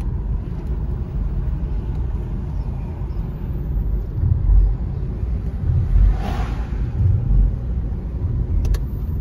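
Inside the cabin of a diesel car on the move: steady engine and tyre rumble, swelling into a few heavier low thumps, with a short rush of noise about six seconds in.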